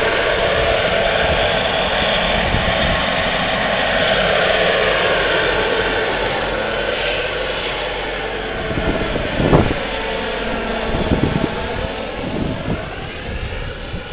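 Gas-turbine engine of a radio-controlled helicopter running with a steady jet whine and rush, slowly fading, with pitch bands that slowly bend. Wind buffets the microphone a few times in the second half.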